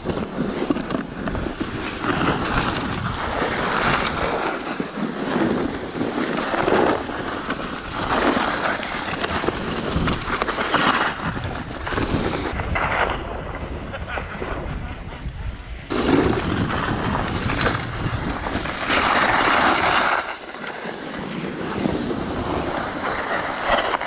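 Snow bike skis carving and scraping over packed snow on a downhill run, in hissing surges that swell and fade every second or two, with wind buffeting the microphone.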